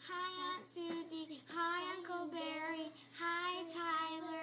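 Young girls singing a melody in phrases of long held notes, stopping near the end.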